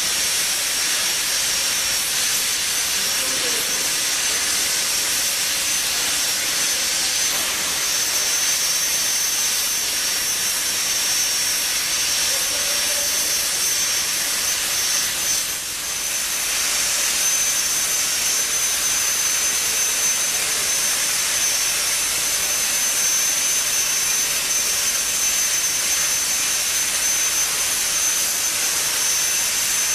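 130-amp CNC plasma torch cutting steel pipe: a loud, steady hiss with a high whine running through it, faltering briefly about halfway.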